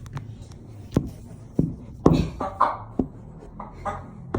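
A few sharp knocks and scuffs in a small room, the loudest just after two seconds in, followed by a quick flurry of short, pitched sounds.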